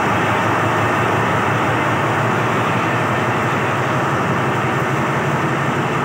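Alsthom diesel-electric locomotive pulling a passenger train away from a station, its engine running with a loud, steady low drone as the locomotive and the first coaches roll past close by.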